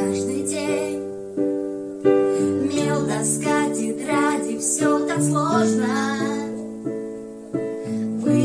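A woman and a young girl singing a song together to piano accompaniment, the piano playing held chords that change every second or so.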